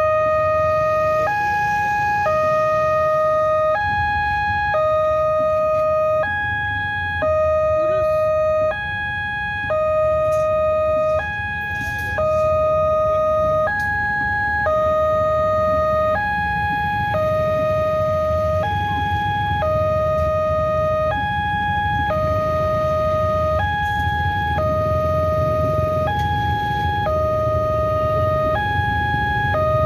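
Railway level-crossing warning alarm sounding continuously: a two-tone electronic signal alternating evenly between a higher and a lower pitch about every 1.2 seconds, over a low rumble of traffic.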